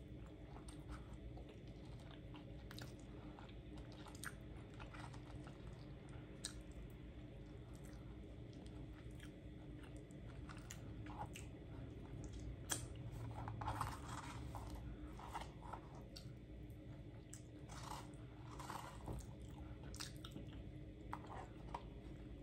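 Close-miked chewing of baked spaghetti squash with meat and cheese: soft, wet mouth sounds with scattered small clicks and crunches.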